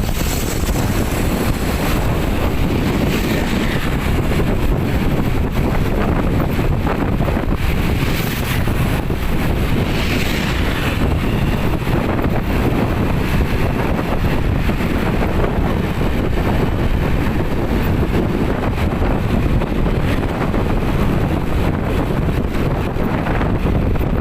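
Wind buffeting the microphone: a steady, loud rumbling noise with no breaks.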